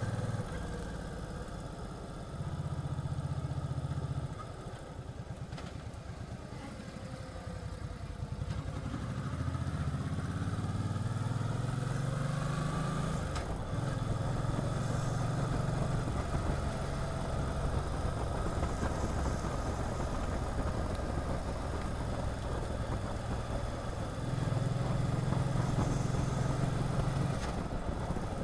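V-twin cruiser motorcycle engine running while under way, with a rise in pitch and level about ten seconds in as the bike pulls away and speeds up.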